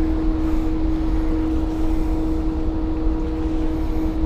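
Steady motor hum at one even pitch over a low rumble, typical of a fishing boat's motor running while the boat holds position.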